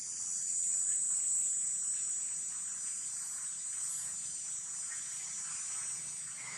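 A steady, high-pitched insect chorus.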